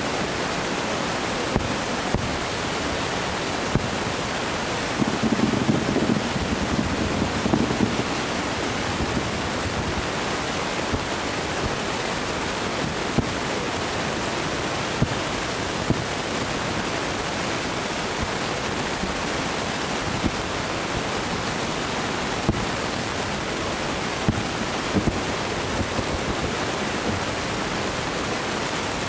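Distant fireworks bursting, heard as scattered faint sharp cracks, with a cluster of them about five to eight seconds in, over a steady rushing background noise.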